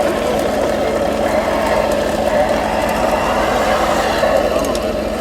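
Radio-controlled construction vehicle models running, giving a steady engine-like idling hum with no distinct events.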